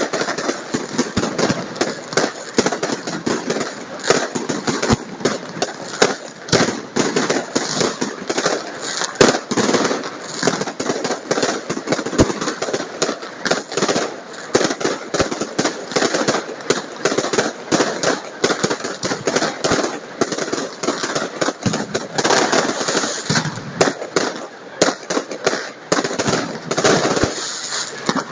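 Aerial fireworks bursting overhead in a rapid, unbroken barrage of bangs and crackles.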